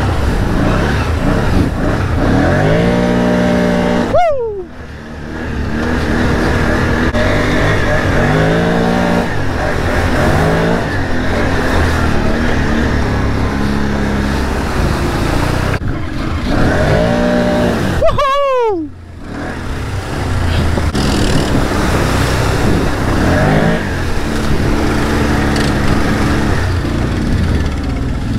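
ATV engine revving hard through mud, its pitch climbing repeatedly under throttle. Twice, about four seconds in and again near eighteen seconds, the revs drop sharply as the throttle is let off.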